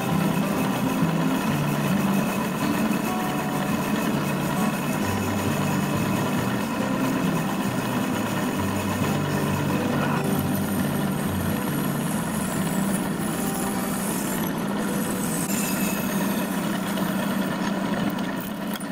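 Metal lathe running steadily, turning a brass ring with a cutting tool that throws off curled brass chips: an even machine hum. Faint high whistles come in during the last few seconds.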